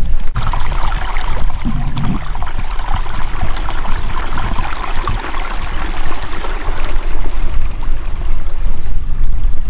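Small stream running and trickling over stones, a steady water noise, with a low rumble underneath.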